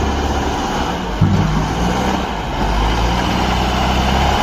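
A truck engine idling: a steady low hum with a faint hiss above it, briefly changing in tone about a second in.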